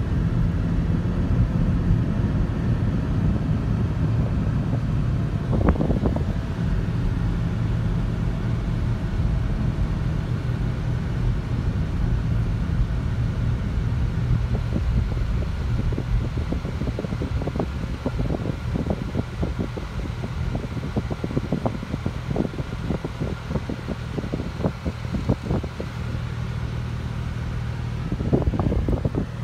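Road noise heard inside a moving car's cabin: a steady low rumble of engine and tyres, with a run of short knocks in the second half and two brief louder swells, one about six seconds in and one near the end.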